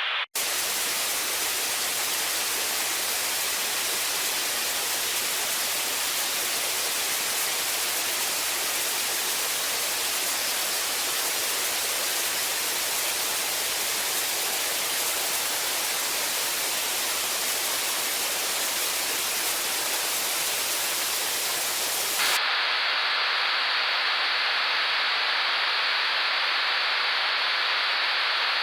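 White static noise, a steady, even hiss like a detuned TV or radio. It drops out for an instant just after the start. About 22 seconds in it switches abruptly to a narrower, duller hiss that has lost its highest and lowest parts.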